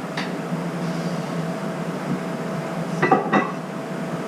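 A steady low hum, with a short cluster of clinks and knocks about three seconds in.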